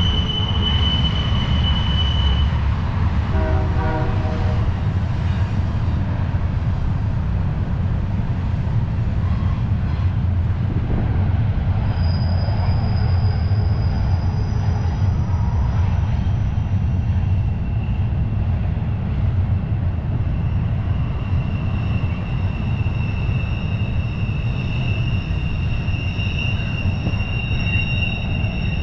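Freight train rolling past: a steady heavy rumble of wheels on the rails, with high-pitched wheel squeal that shifts in pitch and grows stronger in the second half.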